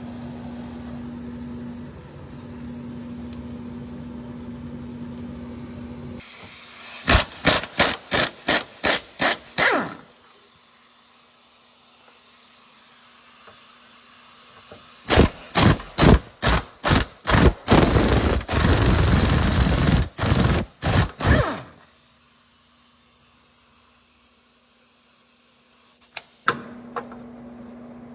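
Impact wrench hammering in quick short trigger bursts, about three a second, then a longer unbroken run and more short bursts, as bolts are worked loose on a rotted front subframe. A steady hum with a low tone lies under the quieter stretches.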